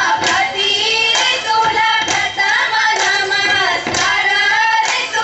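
Women's voices singing a Goan fugdi folk song, with a regular beat about once a second.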